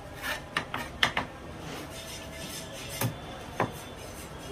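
Large knife chopping pomfret into steaks, striking a round wooden chopping block: a quick run of four knocks in the first second or so, then two more about three seconds in.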